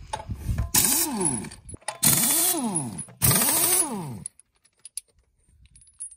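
Air impact wrench buzzing loosened bolts off a tractor's dual-wheel hub: three bursts, each rising then falling in pitch, the last ending about four seconds in. A few light clicks follow.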